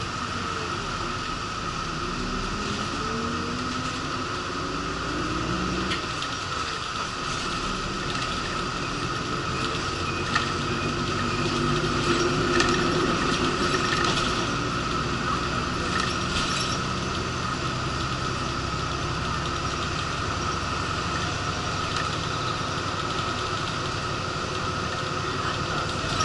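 Interior of a moving route bus: the engine runs under load, its pitch rising and falling several times in the first few seconds, beneath a steady high whine. Scattered clicks and rattles from the cabin come a little before the middle and run on for several seconds.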